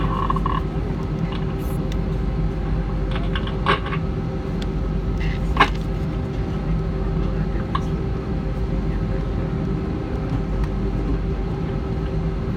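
Steady cabin drone inside an Airbus A320 on the ground, a low rumble with a constant hum of several tones from the engines and air-conditioning. Two small clicks break in, a few seconds in and near the middle.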